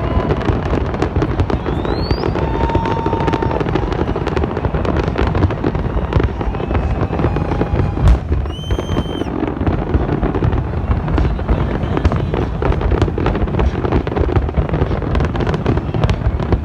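Big fireworks display: a dense, continuous barrage of bangs and crackling from many shells bursting. There is a short rising whistle about two seconds in, and a sharp bang just after eight seconds followed by a brief high whistle.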